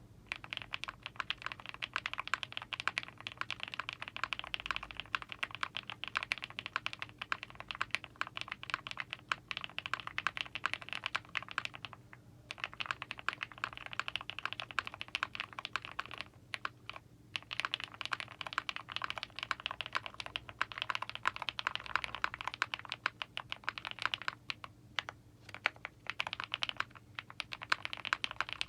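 Fast typing on an Owlab Mr. Suit custom mechanical keyboard with BCP switches, an aluminium plate, full foam and GMK keycaps: dense, rapid keystrokes with brief pauses about twelve seconds in, around seventeen seconds, and near twenty-five seconds.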